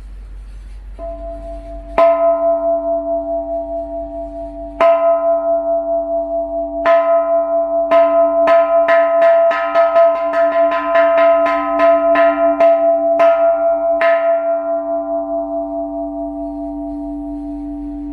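Thai 'long hin' bell of the 5-kam size, struck a few times slowly, then in a fast run of about four strikes a second, then left ringing out with a long, resonant sustain.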